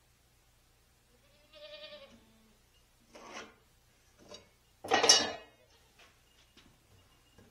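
An animal calling several times: a drawn-out pitched cry about two seconds in, then shorter cries, the loudest about five seconds in.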